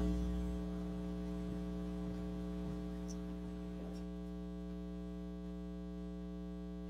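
Steady electrical mains hum with a buzz of evenly spaced overtones, from the church's sound system.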